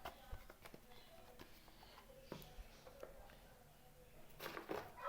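Faint, scattered clicks and taps of small plastic toy pieces being handled, with a short louder rustle near the end.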